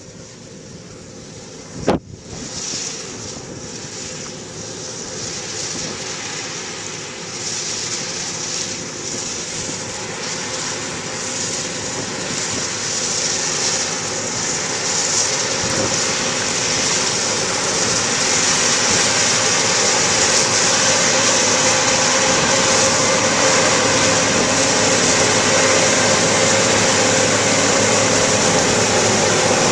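John Deere 7760 round-baling cotton picker running as it harvests, its steady engine and machinery noise growing louder as it comes closer. A single sharp click about two seconds in.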